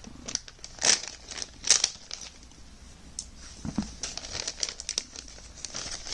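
Packaging being handled and unwrapped by hand, crinkling and rustling, with sharper rustles about one and two seconds in and steadier fine crinkling later.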